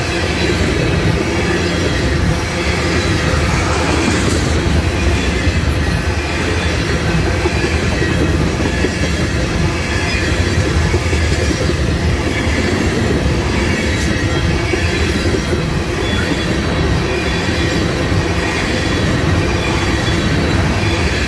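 Railroad tank cars of an oil train rolling steadily past close by: a continuous rumble of steel wheels on the rails, with some wheel squeal and occasional clicks over the rail joints.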